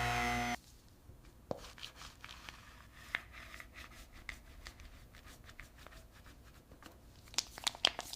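A power tool's steady hum cuts off abruptly about half a second in. It is followed by scattered small clicks, taps and light rubbing from hand work, with a quick run of sharper clicks near the end.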